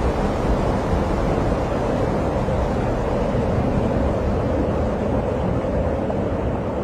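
Wind blowing across the microphone: a steady, low rumbling rush with no breaks.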